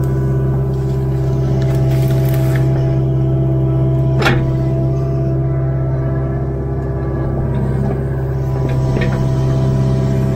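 Kubota KX057-4 mini excavator's diesel engine running steadily under load as the boom and bucket work, heard from the operator's cab. A single sharp crack stands out about four seconds in, with a couple of lighter knocks near the end.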